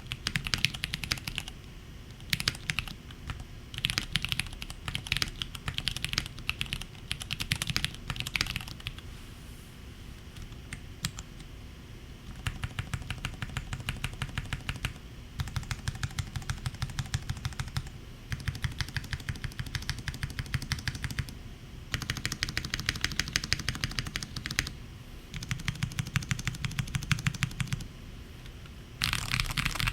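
Typing on a Neo70 mechanical keyboard with Cherry MX Purple switches: fast runs of keystrokes in bursts, with a lighter spell of scattered clicks about a third of the way in.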